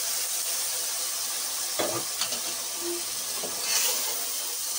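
Yogurt-marinated chicken sizzling and frying as it is tipped into browned onions in hot ghee in a metal pot, with a few short knocks about halfway through.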